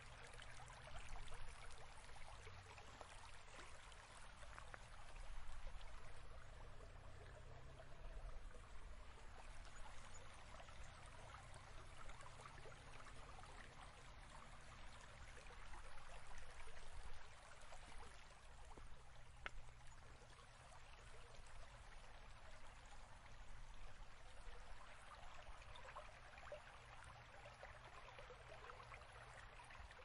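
River water flowing, a faint, steady rush that swells and eases every few seconds.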